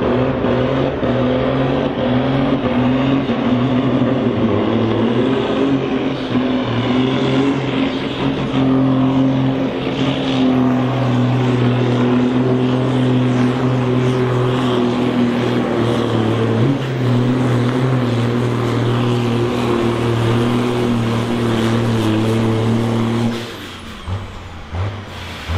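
Ford TW-25 tractor's turbocharged six-cylinder diesel engine running hard under full load, pulling a tractor-pulling sled, a loud steady drone whose pitch wavers only slightly. About 23 seconds in, the engine sound drops away sharply to a weaker, pulsing rumble.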